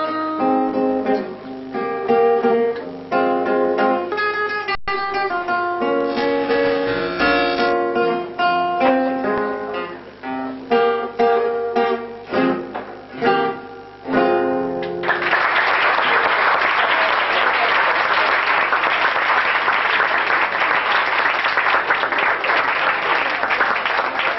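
Solo acoustic guitar playing a picked melody over chords, closing the piece with a few strummed chords; about fifteen seconds in, an audience breaks into steady applause.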